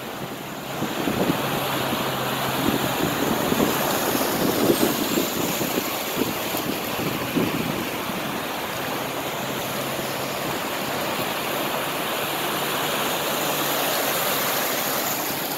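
Floodwater surging and splashing over the curb and sidewalk, a wave pushed up by cars driving through deep street flooding. It swells about a second in, choppy and splashy for several seconds, then settles into a steady rush of moving water.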